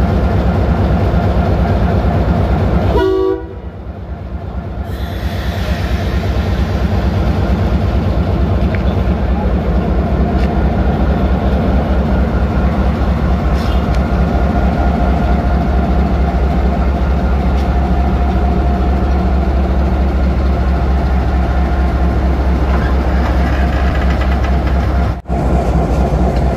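Diesel locomotive engine running close by with a loud, steady low rumble as it is backed onto a passenger carriage to couple up. The rumble dips briefly about three seconds in and cuts out for a moment near the end.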